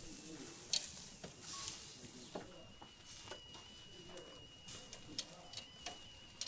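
Sausages sizzling faintly on a charcoal grill, with scattered sharp clicks of metal tongs against the grill grate as they are turned and lifted.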